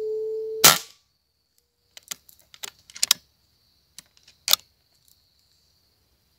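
A low held hoot that ends with one loud sharp click less than a second in, then a scatter of lighter clicks and knocks over the next few seconds, over a steady faint high insect drone.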